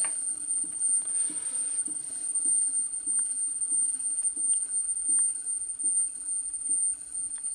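Harley-Davidson crankshaft flywheel assembly turning on a truing stand: a steady high-pitched whine with a soft, regular knock about one and a half times a second.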